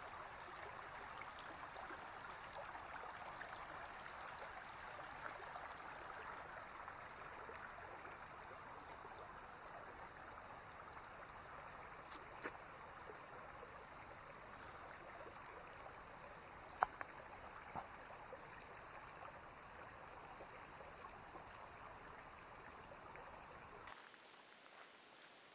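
Shallow rocky creek flowing steadily over stones, with a few sharp clicks about halfway through. Near the end it gives way to a steady high-pitched whine.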